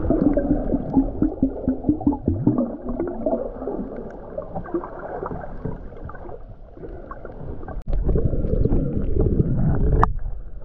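Muffled underwater sound of moving water and gurgling bubbles, picked up by a submerged camera. It grows louder after a sudden break about three-quarters of the way through, with a sharp click near the end.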